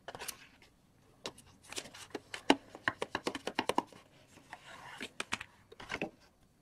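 Stiff cardstock rustling, creasing and tapping as a folded paper box is handled and its glued flaps pressed, with a flurry of quick crisp clicks in the middle.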